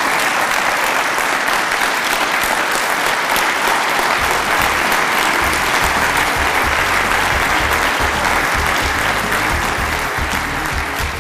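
Audience applauding, a long sustained clapping from a large room, with background music coming in underneath about four seconds in.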